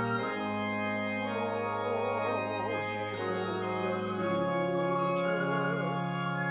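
Pipe organ playing sustained hymn chords, with a flute playing a melody with vibrato over them through the middle of the passage.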